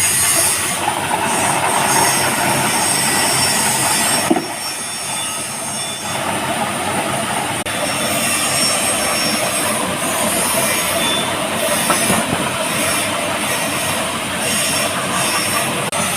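Ginger washing-and-peeling machine running, with a continuous harsh scraping and rubbing noise. It drops a little for a couple of seconds about four seconds in.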